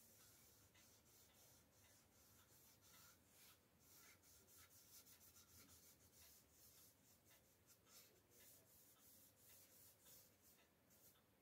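Faint, repeated strokes of a hand rubbing a cloth back and forth over a bare wooden frame, wiping on an oil finish.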